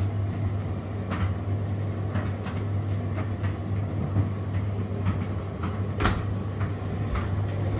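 Indesit IDC8T3B condenser tumble dryer running in its cool-down phase: a steady low motor hum with the drum turning and irregular knocks as the load tumbles, one sharper knock about six seconds in.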